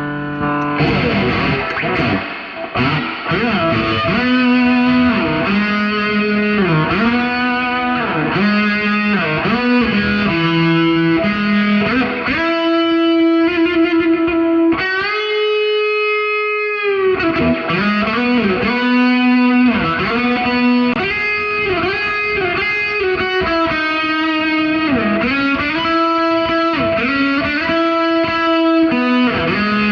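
Distorted electric guitar playing a slow melody with bent notes, holding one long note about halfway through.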